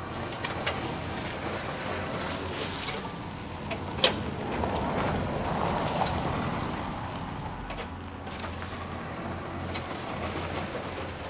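Gravel crunching and scraping as the front plow blade of a homemade electric lawn tractor pushes into a pile, swelling in the middle of the stretch, with a couple of sharp clicks of stones.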